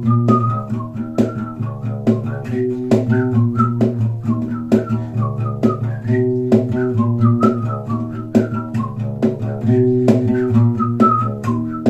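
Instrumental break of a pop song played on a plucked one-string instrument: a steady rhythm of plucked notes, with a higher melody line sliding between notes above it.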